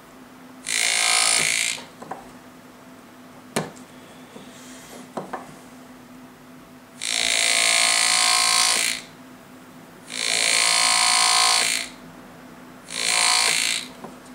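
Pneumatic graver (air-driven engraving handpiece) buzzing in four bursts of one to two seconds each as it cuts fine decorative strokes into a gold signet ring, with a low steady hum underneath.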